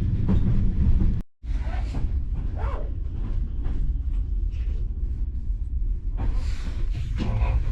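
Steady low rumble of a BDZ passenger train under way, with scattered short knocks and rattles. It cuts out for a split second about a second in, then carries on.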